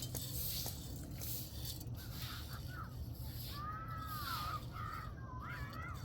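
A bird calling several times in short, bending, cawing calls through the second half, over a steady low background hum.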